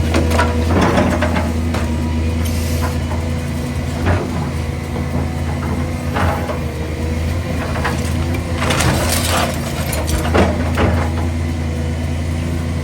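Heavy diesel engine of a demolition machine running steadily while timber and debris crack and crash irregularly as the house is pulled apart, with a cluster of crashes about two-thirds of the way through.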